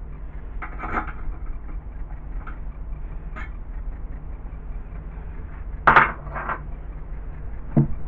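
Hex key and small metal parts clinking and tapping against an aluminium base plate and linear rail while the rail is being fitted: a handful of scattered knocks, the loudest about six seconds in. A steady low hum runs underneath.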